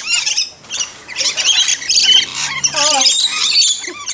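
A group of rainbow lorikeets calling at close range: a dense tangle of shrill, overlapping chirps and squawks, with a brief lull about half a second in.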